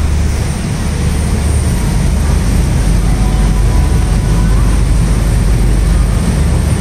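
River tour boat under way, its engine giving a steady low rumble, with an even hiss of wind and water over it.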